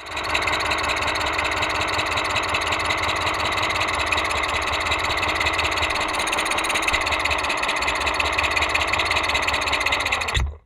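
An engine running steadily at a constant speed, a fast even pulsing rattle with no revving. It cuts off abruptly just before the end.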